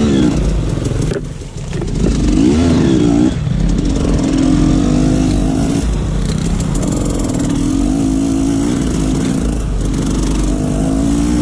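Off-road dirt bike engine revving up and down as it is ridden, the pitch rising and falling over and over, with a brief dip about a second and a half in.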